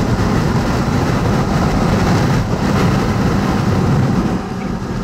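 Steady road noise inside a moving vehicle: a low rumble of engine and tyres with a hiss from the wet pavement, dropping slightly near the end.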